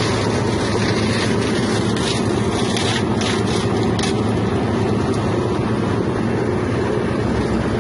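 Bread-plastic separator machine running steadily with a constant motor hum, with a few short bursts of higher rattling noise about three to four seconds in.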